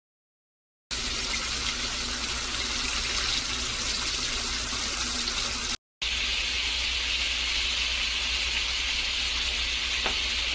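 Battered seafood deep-frying in hot oil: a steady, dense sizzle that starts about a second in, drops out for a moment just before the middle, and then carries on a little brighter.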